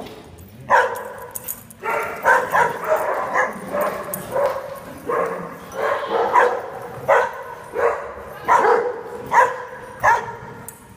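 A dog barking over and over in play, about one to two sharp barks a second, all on much the same pitch.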